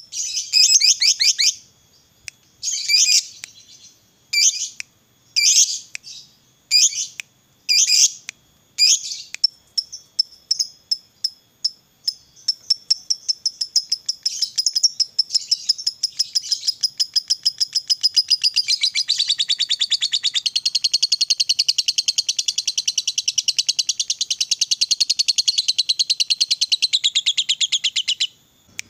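Fischer's lovebird singing: a string of short, rapid chattering bursts about a second apart, then, from near the middle, one long unbroken fast trill lasting some sixteen seconds, the long 'ngekek panjang' song that lovebird keepers prize.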